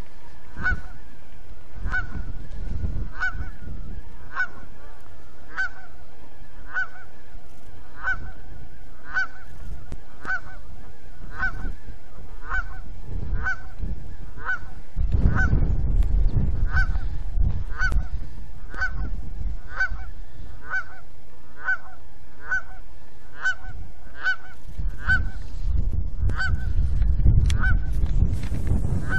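A goose honking over and over without a break, a little under two honks a second.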